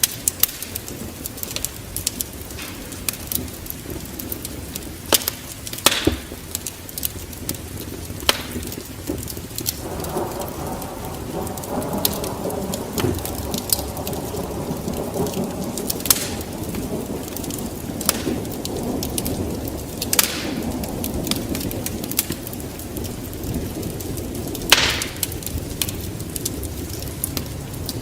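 Wood fire crackling with sharp, scattered pops over steady rain; about ten seconds in, a low rumble of thunder swells and keeps rolling.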